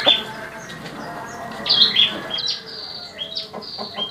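A small bird chirping: short, high notes that each drop in pitch, one at the start and then a quick run of them repeating several times a second from about halfway through.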